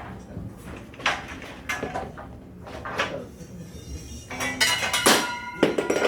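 Aluminum frame extrusions knocking and clanking as they are handled and set down, with a few separate knocks and then a louder run of metallic clanks that ring briefly in the second half.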